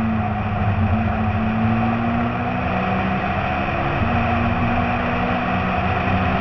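Citroën C2 rally car's engine running hard at steady revs under a haze of road and wind noise, its pitch dipping briefly about four seconds in before picking up again.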